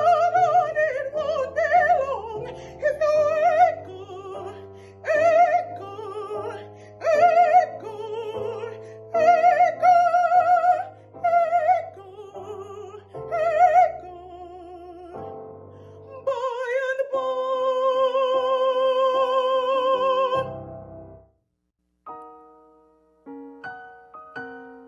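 A classical-style high voice, in the soprano range, sings with wide vibrato over piano, ending on a long held note that stops about 21 seconds in. Solo piano notes follow near the end.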